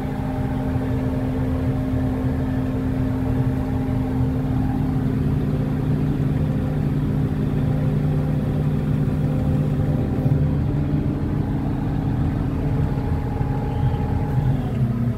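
Crane machinery running with a steady mechanical hum, dipping slightly in pitch near the end.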